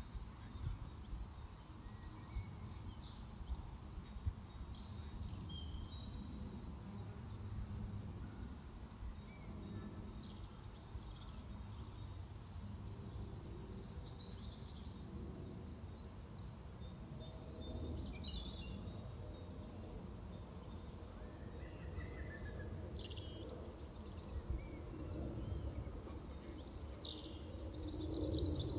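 Wild birds chirping and calling in short, scattered phrases over a steady low rumble of outdoor noise.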